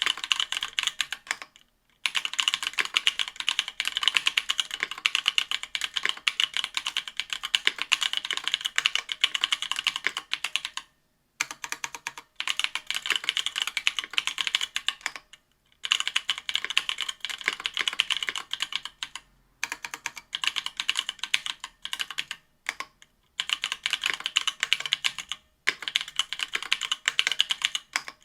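Typing on a Duck Octagon V3 mechanical keyboard with stock Ethereal Panda tactile 68g switches: fast runs of keystroke clacks broken by short pauses every few seconds.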